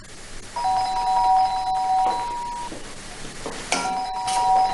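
Electronic doorbell chiming with two overlapping steady tones. It rings twice: about half a second in, and again near the end.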